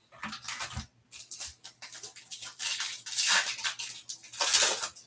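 Foil trading-card pack wrapper crinkling and rustling as a pack is taken from the hobby box and torn open. There are short rustles at first, with the loudest crinkling a little after halfway and again near the end.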